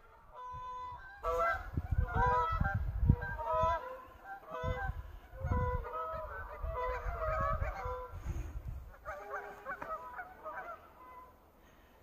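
A flock of geese honking as they fly over, many overlapping honks that thin out and fade near the end.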